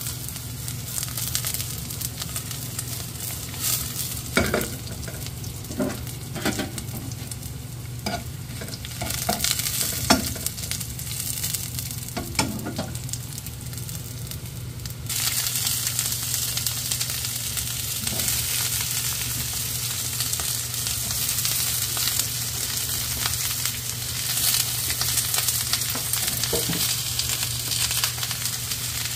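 Sliced onions sizzling in hot oil in a frying pan, with a few scrapes of stirring in the first half. The sizzle gets louder about halfway through.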